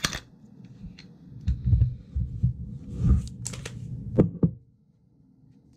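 Semi-automatic pistols handled during a safety check: a string of sharp metallic clicks and clacks from the actions, mixed with several dull knocks of the guns against a desk mat.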